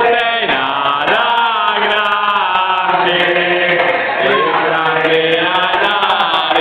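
A small group of people singing a song together in unison, chant-style, with long held notes.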